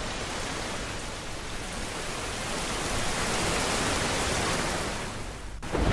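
Heavy rain hiss, an even noise with no distinct drops or tones, swelling a little in the middle and breaking off sharply just before the end.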